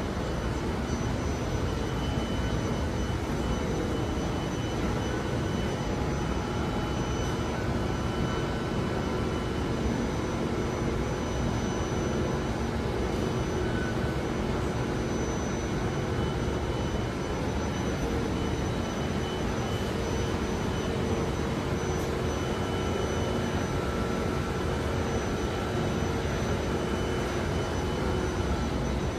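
Steady mechanical rumble and hum of the Singapore MRT, with faint constant high whistling tones over it.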